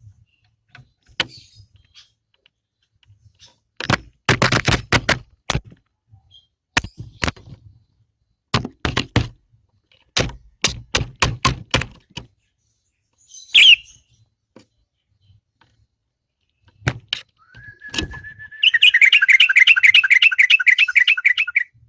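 Sooty-headed bulbul: a run of sharp knocks and clatters, then a short chirp, and near the end a brief whistled note that breaks into a fast trilling call.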